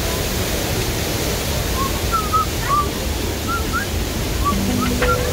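Waterfall and gorge stream rushing: a steady, even noise of falling water. A few short chirps sound midway, and background music with held notes comes in near the end.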